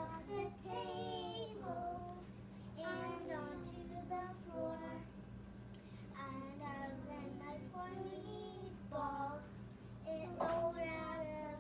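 A child singing, the voice rising and falling in pitch through short sung phrases, over a steady low electrical hum.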